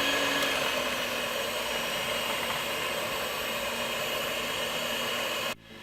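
Electric blender running steadily, mixing pancake batter of eggs, milk and self-rising flour; it cuts off suddenly near the end.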